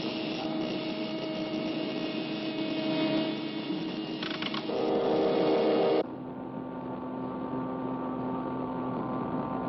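Steady electrical hum of cartoon laboratory machinery. About five seconds in a louder, brighter buzz joins. At six seconds it cuts off suddenly to a quieter, lower hum.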